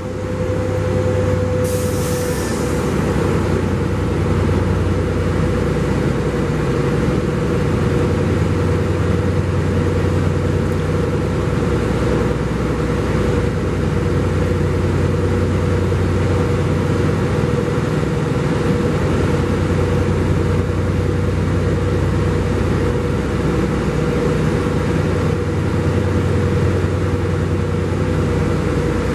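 Diesel locomotive engine idling with a steady low hum and a steady whine above it. A short hiss of air comes about two seconds in.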